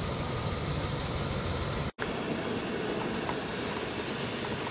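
Pressurized liquid-fuel camp stove burning steadily under a kettle of water, a continuous hiss from the burner. The sound drops out for an instant about two seconds in.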